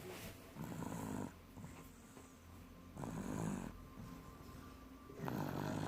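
Snoring: three rough, low snores a little over two seconds apart, each lasting under a second.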